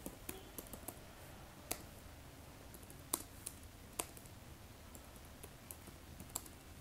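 Computer keyboard typing: faint, irregularly spaced key clicks.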